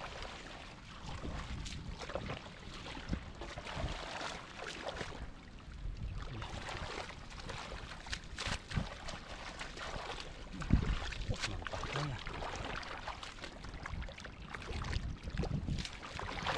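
Muddy water sloshing and splashing in irregular bursts, with a low, uneven rumble of wind on the microphone.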